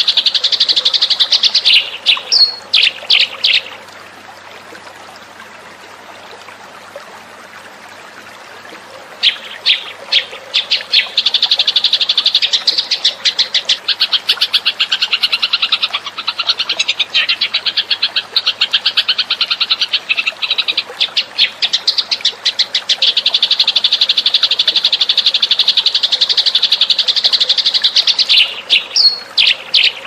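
Eurasian tree sparrow chirping in a fast, continuous chatter, a bird-lure recording. The chatter breaks off after a few separate chirps about three seconds in, and picks up again about nine seconds in, with a few loose chirps near the end.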